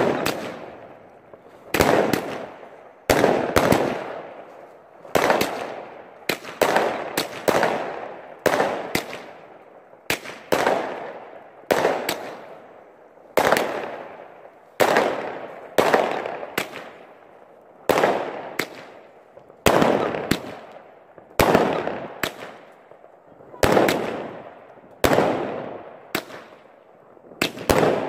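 Fireworks shooting off in a long series, a sharp bang about every second or so, each followed by a fading crackle.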